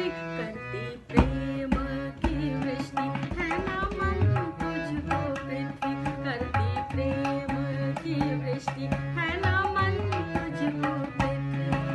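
Song accompaniment: tabla playing a steady rhythm, its low drum bending in pitch, under a sustained melodic instrument line. A strong drum stroke comes about a second in.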